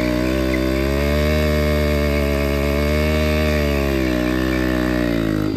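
Motorcycle engines held at high revs under heavy load in a tug-of-war between two roped-together bikes, the revs sagging and climbing again as they strain against each other.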